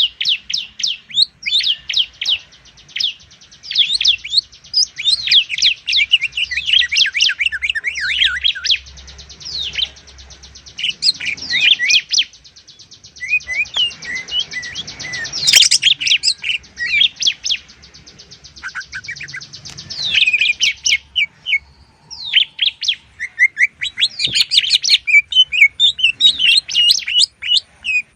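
A green leafbird (cucak ijo) and a bar-winged prinia (ciblek) singing over each other in rapid, high chirps and whistles, with a long buzzy trill running through the first two-thirds.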